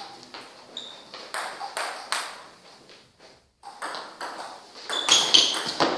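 Table tennis ball clicking sharply and irregularly on the table and the rackets, with a short pause about three seconds in. A rally follows, with the strokes coming faster and loudest near the end.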